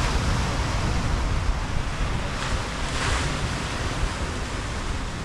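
Sea surf washing over a rocky shore, with wind rumbling on the microphone. The hiss of the wash swells twice, about two and a half and three seconds in.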